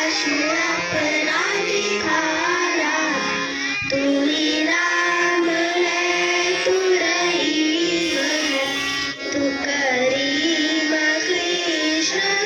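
Children singing a Hindi devotional song to the school band's instrumental accompaniment.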